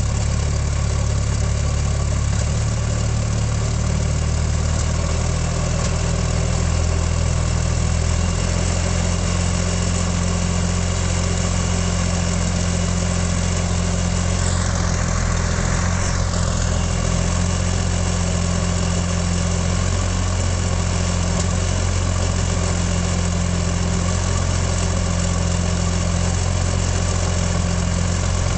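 Hawker Sea Hurricane's Rolls-Royce Merlin III V12 aero engine running steadily on a ground run, the engine's first proper run after about ten years.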